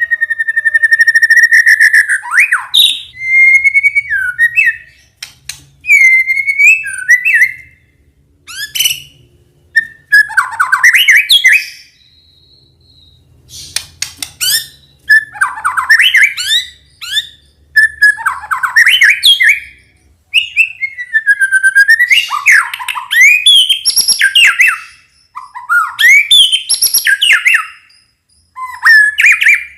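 White-rumped shama (murai batu) singing loud, varied whistled phrases a second or two long, with short pauses between them. The song opens with a long held whistle.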